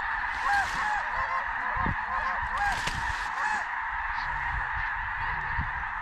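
A large flock of snow geese calling overhead: a constant din of many overlapping high, short yelps.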